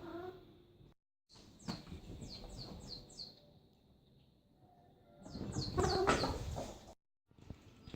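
A cat chirping and chattering: a quick run of about five short, falling high chirps, then a second run that leads into a louder, fuller call.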